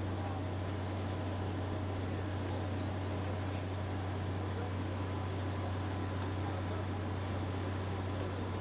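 Steady low mechanical drone with an even hiss over it, unchanging throughout: fire engine diesels running their pumps to feed hose streams.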